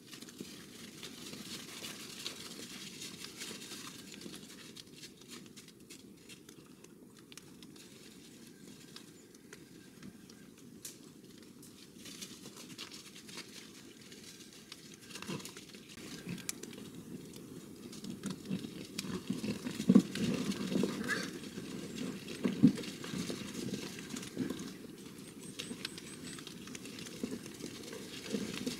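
A sounder of wild boar foraging in snow and leaf litter: grunts and rustling, louder and more frequent in the second half, with a couple of sharper noises about two-thirds of the way in.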